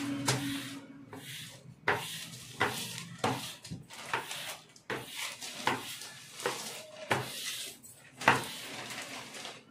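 Plastic squeegee scraping across a self-adhesive marble-pattern sheet on a kitchen slab, pressing it flat in a series of short strokes, roughly one a second, the loudest near the end.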